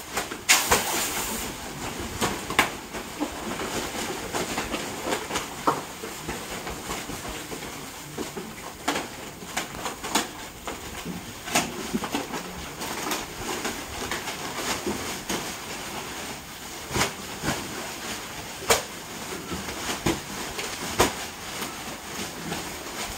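Continuous hiss of gas from hoses inflating plastic packing bags, with irregular crinkles and slaps of the plastic bags being handled and set down.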